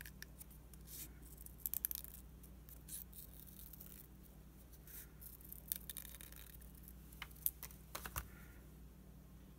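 Small craft scissors snipping paper: quiet, irregular short snips and paper rustle, over a faint steady low hum.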